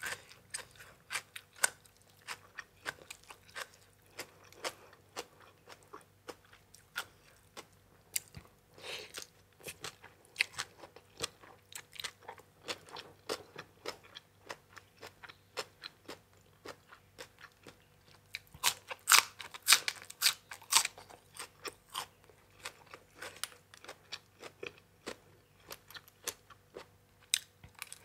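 Close-miked mukbang eating: a steady run of wet chewing and sharp crunches as a person eats spicy papaya salad with blood cockles and crisp raw vegetables such as bitter gourd. A louder flurry of crunches comes about two-thirds of the way through.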